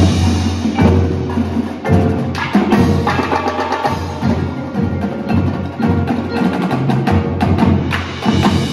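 Indoor percussion ensemble playing: marimbas and vibraphones with marching snare, tenor and bass drums, many quick strikes over a low sustained tone.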